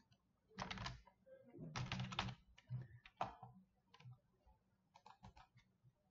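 Computer keyboard typing in several short bursts of keystrokes with pauses between them.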